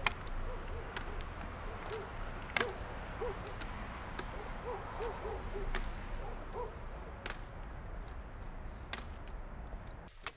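Outdoor night ambience: a steady hiss over a low hum, with a run of short, low hooting calls through the first six seconds or so and scattered sharp clicks.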